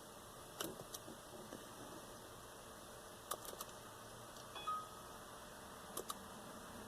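Faint button clicks on a diagnostic scan tool, some in quick pairs and a short cluster, with one short electronic beep about two-thirds of the way through.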